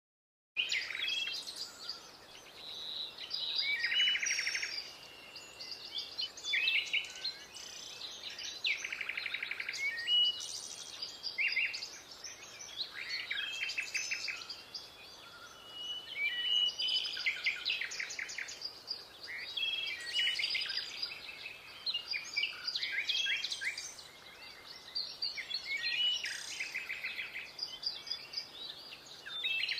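Birds chirping and singing, many quick calls and rapid trills overlapping without a break. The birdsong starts abruptly about half a second in.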